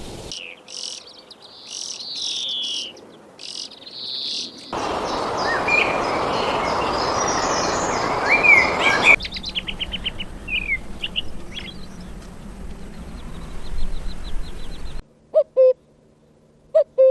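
Songbirds chirping and whistling in a string of separate recordings joined by abrupt cuts. In the middle a steady hiss lies under the chirps, later comes a fast trill, and near the end a few short, lower calls stand alone.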